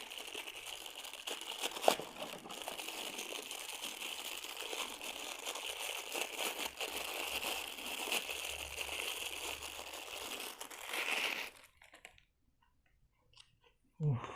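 Crinkly wristwatch packaging rustling and crackling steadily as it is handled and unwrapped, with one sharp click about two seconds in. The rustling stops a couple of seconds before the end.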